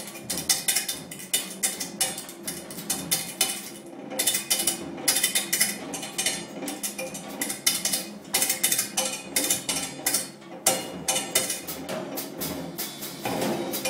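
Improvised free-time playing on a drum kit: dense, irregular flurries of quick stick strikes with no steady beat, over a few held ringing tones.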